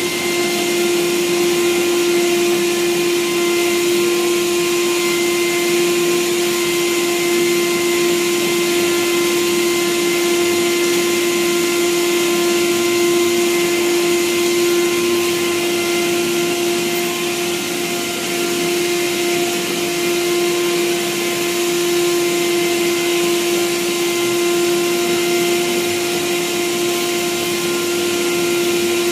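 Handheld mattress vacuum cleaner running steadily as it is moved over a mattress: an even motor whine that holds one pitch throughout.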